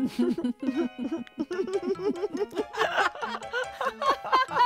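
Cheerful cartoon background music, a quick, bouncy melody.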